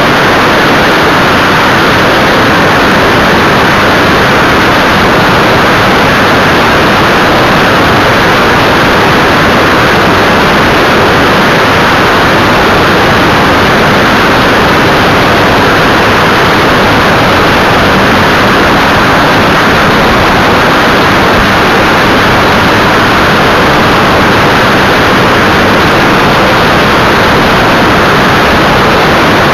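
Evektor EuroStar ultralight in cruise flight, heard from a camera on its tail: a loud, steady rush of airflow over the microphone, with the engine and propeller drone underneath.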